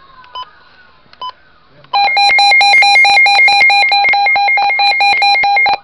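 Weather alert radio beeping twice as its buttons are pressed. About two seconds in, its alarm sounds: a loud, rapidly pulsing beep of several tones at once, which stops abruptly near the end.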